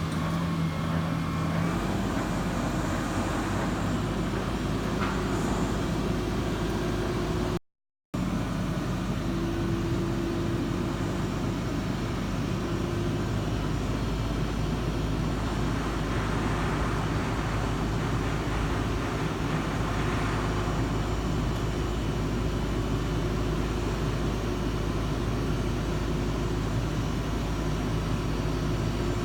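Diesel engine of a JCB telescopic handler running steadily, with a faint steady whine over it. The sound cuts out completely for a moment about eight seconds in.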